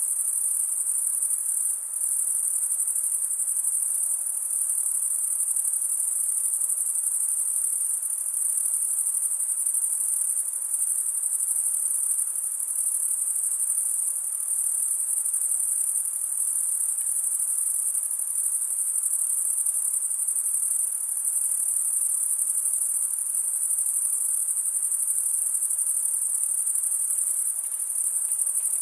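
A dense chorus of crickets, a steady high-pitched shrill that never pauses.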